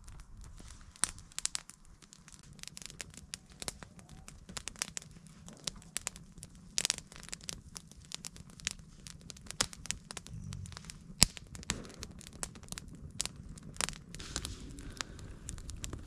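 Small wood campfire crackling and popping, with irregular sharp snaps and one louder pop about eleven seconds in.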